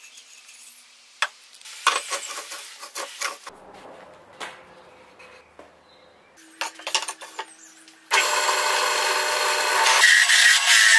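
A few light knocks and clicks over a quiet background, then about eight seconds in a drill press motor starts with a loud, steady whine. About two seconds later the sound turns rougher as its Forstner-style bit starts boring into a pallet-wood board.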